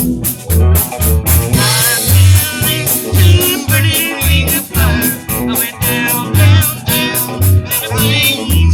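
A band playing a song, with a bass line pulsing about twice a second under guitar and a wavering melody line.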